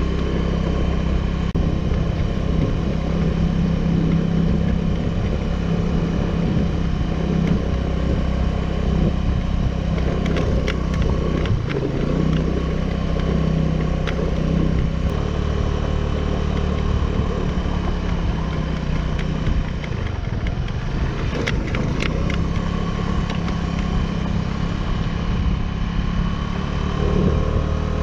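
Suzuki Burgman 200 scooter's single-cylinder engine running steadily under way on an uphill ride, its note dipping and rising a few times and climbing near the end, over steady road and wind noise.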